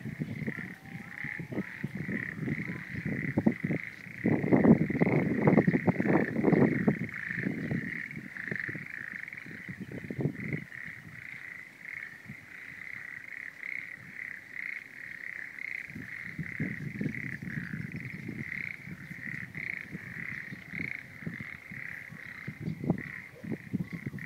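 A chorus of frogs calling in a rice paddy: a faint, continuous run of fast, pulsed croaks. Irregular low rumbling bursts come and go over it, loudest a few seconds in.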